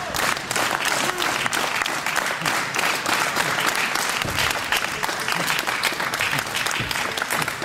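Crowd applauding, with a few voices calling out over the clapping.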